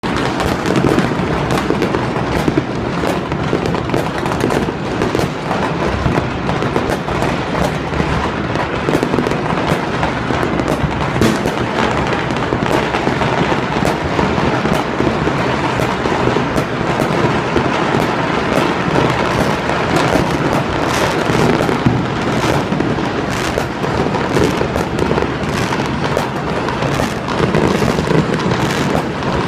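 Many fireworks and firecrackers going off at once: a continuous barrage of overlapping bangs and crackling with no gaps.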